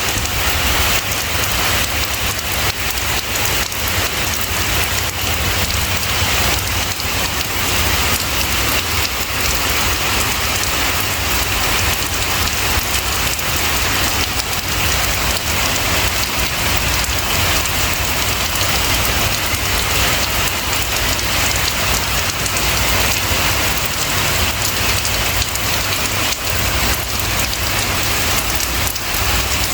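Steady, heavy rain falling, an even hiss without let-up.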